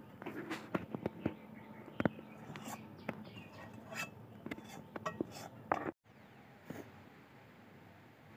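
Scattered light clicks and knocks from handling around an aluminium bowl, with faint voices behind. The sound cuts out abruptly about six seconds in, leaving only a faint hiss.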